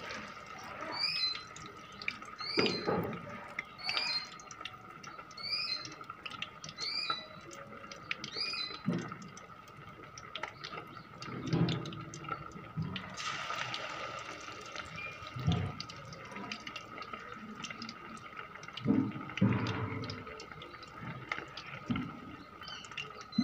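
Anchovies deep-frying in hot oil, a steady sizzling and bubbling. A bird chirps again and again, about once a second, through the first several seconds, and a few dull thumps come and go.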